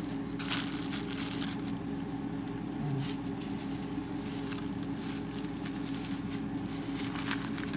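Clear plastic zip-top bag crinkling a few times as frozen ground beef balls are handled and taken out of it, over a steady low machine hum.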